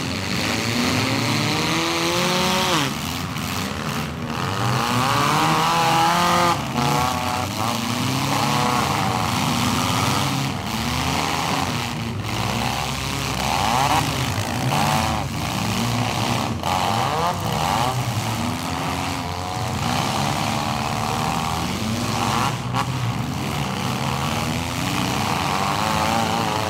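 Several compact demolition-derby cars' engines revving hard at once, pitches rising and falling, with repeated sharp crunching impacts as the cars ram into each other.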